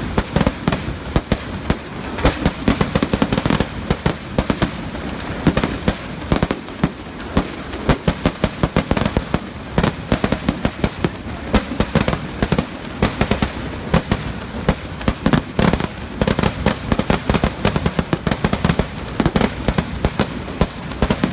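Festival fireworks: a dense, continuous barrage of firecracker blasts, several bangs a second, with no break.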